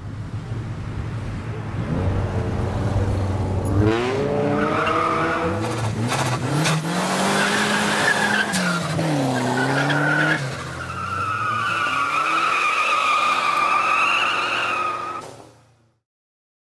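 A car engine with a low steady drone, then revving from about four seconds in, its pitch rising and falling several times. Tires squeal in a high, wavering squeal over the last few seconds before the sound fades out.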